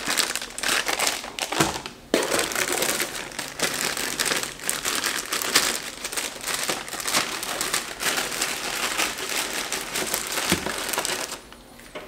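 Clear plastic packaging bags crinkling and rustling as they are handled and opened to pull out hoses. There is a brief lull about two seconds in, and the crinkling stops shortly before the end.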